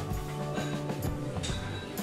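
Background music: held notes over a low bass line, changing chord about a second in.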